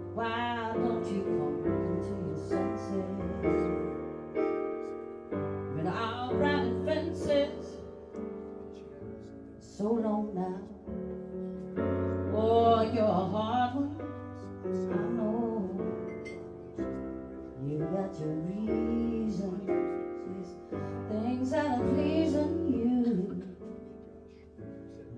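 Live band playing a slow ballad: a woman sings long phrases over electric keyboard chords, with a bass guitar underneath.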